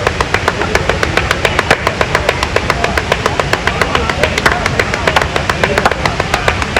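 Background music with a fast, even clicking beat.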